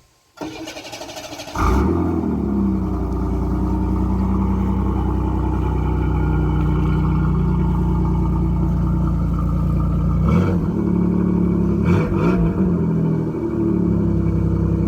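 A 1991 Chevrolet Camaro's 3.1 V6 being started after sitting for a couple of months: the starter cranks for about a second, the engine catches, and it settles into a steady idle, with a couple of brief changes in its sound near the end.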